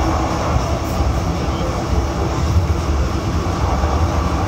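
DÜWAG Pt-Wagen articulated tram running along its track, a steady low rumble heard from inside the front cab.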